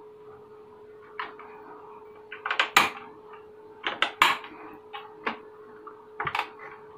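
Clicks and knocks of a mini hi-fi's front panel being handled and pressed back onto its chassis. The loudest knocks come a little under three seconds in and again around four seconds in. A faint steady hum runs underneath.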